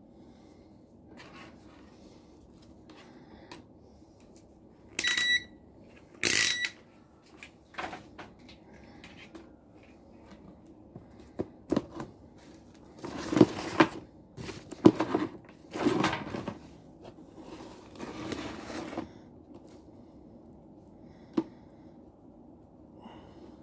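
Two short electronic beeps, about a second apart, from a digital multimeter, followed by rustling and clicking as wires and test leads are handled, the handling noises being the loudest part.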